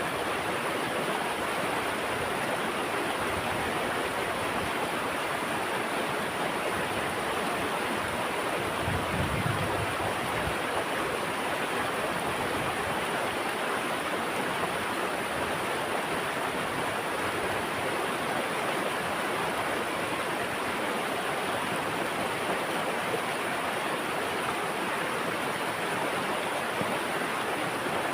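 Flowing water rushing steadily and evenly, like a stream or small waterfall, with a brief low bump about nine seconds in.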